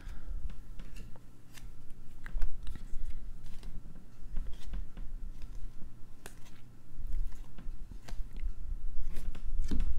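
Glossy baseball trading cards being slid one at a time off a hand-held stack: a scatter of small clicks and card-stock rubbing.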